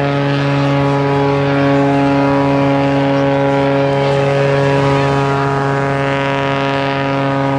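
Oracle Challenger III aerobatic biplane's piston engine and propeller running at a steady pitch, a continuous even drone.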